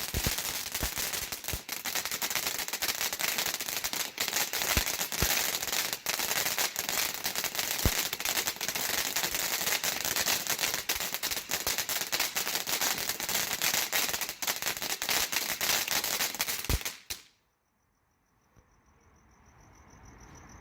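Consumer firework fountain (Realtree Fireworks' Blaze) burning with a dense spraying hiss and rapid crackling, many sharp cracks, then cutting off suddenly about 17 seconds in as it burns out. After it, only a faint high steady trill remains.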